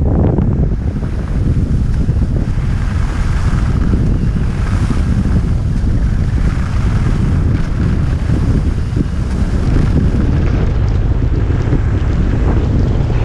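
Steady, loud wind noise on a GoPro Hero 5 Session's microphone from a skier's downhill speed, mixed with the hiss of skis sliding over groomed snow.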